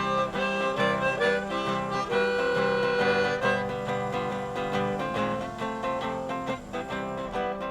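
Blues played on guitar with harmonica, an instrumental passage with long held notes over plucked strings.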